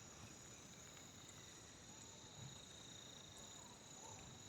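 Faint, steady chorus of insects, several high shrill tones held without a break over a low hiss.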